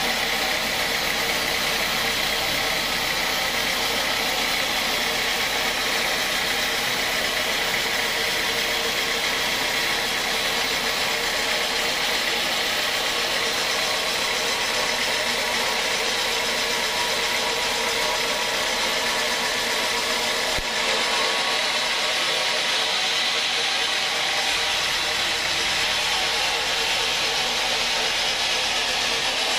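Horizontal band sawmill running steadily, its blade cutting lengthwise through a large teak log with an even, hissing noise. About two-thirds of the way through there is a brief click and the low hum underneath changes.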